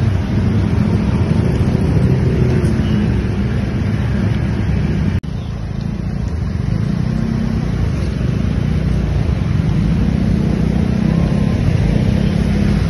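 Motor vehicle traffic and the rider's scooter running on a wet road, a steady low rumble, broken by a brief sudden dropout about five seconds in.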